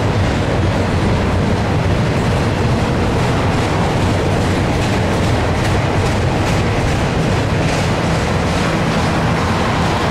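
Double-stack intermodal well cars rolling past at speed: a steady, loud rumble of steel wheels on rail, with a few faint clicks from the wheels.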